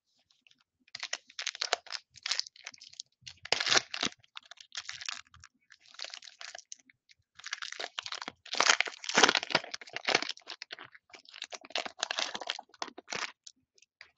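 Silver foil wrapper of a football trading card pack crinkling and crackling as it is torn open by hand, in a run of irregular rustles that starts about a second in and stops just before the end.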